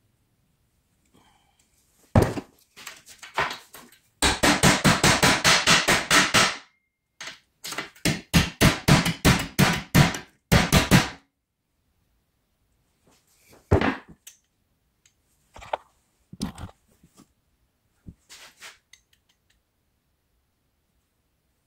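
Hammer striking a small metal bracket against a metal surface: fast runs of ringing metal-on-metal blows, about six a second and then about four a second, followed by a few separate knocks.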